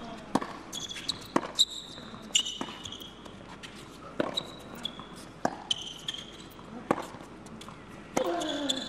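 Tennis ball struck back and forth by rackets in a baseline rally, a sharp hit about every second and a half, with short high squeaks of tennis shoes on the indoor hard court between the hits. A voice is heard briefly near the end.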